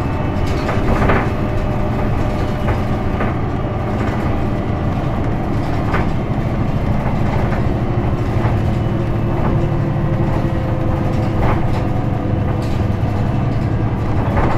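Cabin sound of a 2005 Isuzu Erga PJ-LV234L1 city bus with a manual gearbox under way. Its six-cylinder diesel makes a steady low drone with a slowly shifting engine note, and short rattles and knocks from the body and fittings come every second or two.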